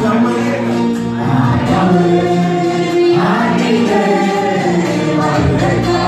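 A group of voices singing a gospel worship song together, with long held notes.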